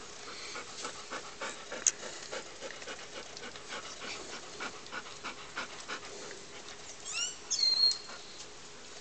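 Puppies panting in rapid short breaths. Near the end comes a brief burst of high, squeaky chirps, the loudest sound here.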